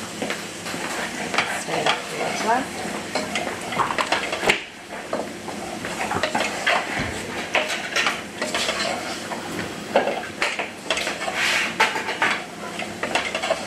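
Wooden spoon stirring and scraping vegetables and spices round a non-stick saucepan, with frequent short knocks and scrapes against the pan over a steady sizzle of the vegetables frying.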